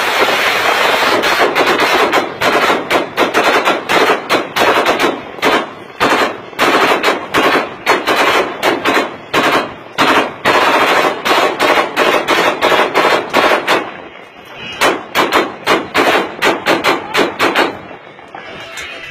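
Several rifles fired into the air together, a celebratory volley. It starts as a dense run of overlapping shots, then breaks into rapid single shots and short bursts, several a second. There is a brief lull about fourteen seconds in, then more shots until the shooting stops near the end.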